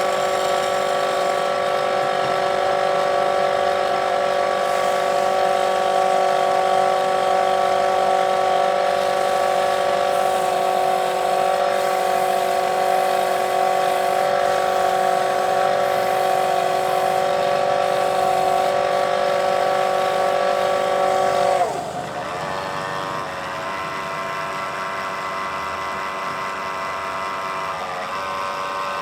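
Electric wood lathe running with a steady whine over a hiss of cutting noise. About three-quarters of the way through its pitch dips sharply and it runs on quieter.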